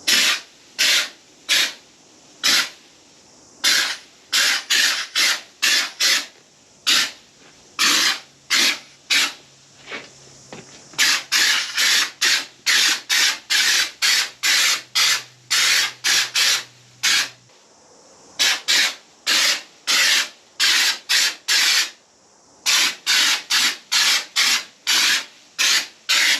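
Aerosol can of spray-on sound deadener (underseal) hissing in dozens of short bursts, each under half a second, about one to two a second with brief pauses between, as it is laid on thick.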